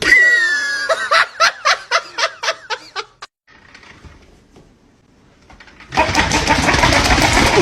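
A short high falling cry, then a rapid run of laughter, about four bursts a second. After a quiet pause of a few seconds, a loud even rushing noise begins.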